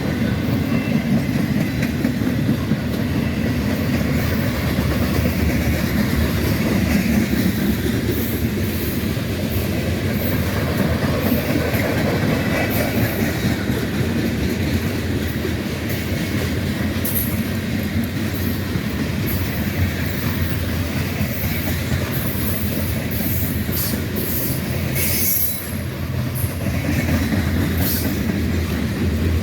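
Freight train cars rolling past on steel rails: a steady rumble with wheel clicks and short high-pitched wheel squeals, more of them in the second half.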